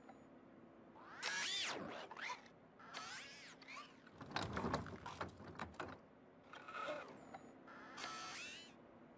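Playful mechanical sound effects from a toy-like machine with a hose, as it turns round to face forward. It ratchets and clicks, with several short whistle-like tones that glide up and down.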